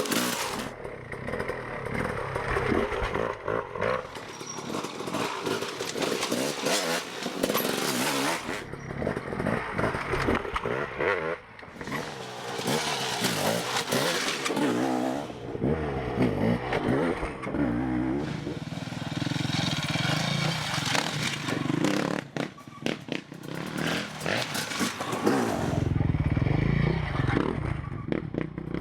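Off-road motorcycle engines running and revving, the pitch climbing and dropping again and again with throttle changes.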